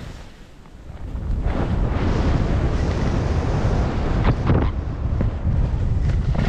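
Wind rushing over a body-worn camera's microphone while skis slide and scrape through snow, much louder from about a second in, with a few short scrapes or knocks near the end.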